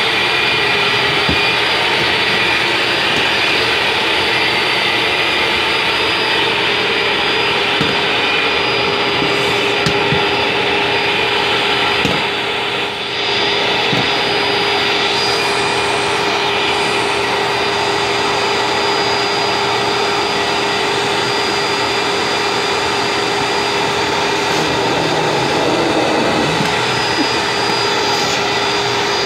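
Vacuum cleaner running steadily through its hose, a loud constant rush of air with a steady motor hum, dipping briefly about halfway through.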